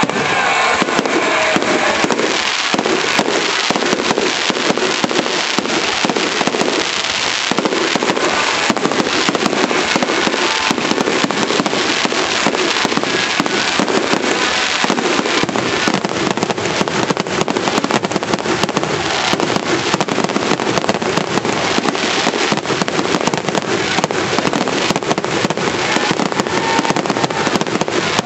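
Fireworks display going off in a continuous, rapid barrage: many aerial shells and crackling comets bursting at once, a dense run of bangs and crackles with no pause.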